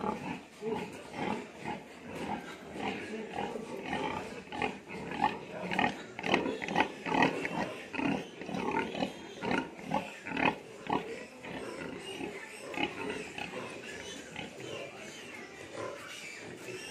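Pigs vocalising: a run of short, repeated calls, a few a second, loudest and thickest about halfway through.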